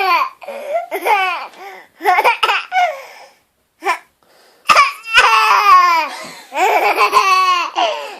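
Five-month-old baby laughing in repeated bursts of high squeals that fall in pitch, with short pauses between. The longest run of laughter comes from about five seconds in.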